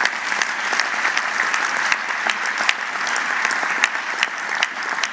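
A large hall audience applauding steadily, many hands clapping at once.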